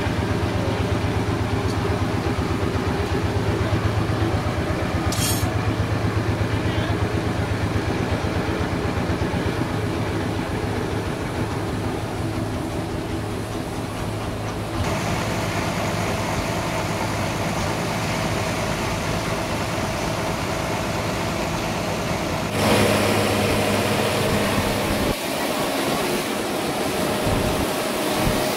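Sawmill's engine running steadily, its sound shifting abruptly about halfway through and again near three-quarters of the way through.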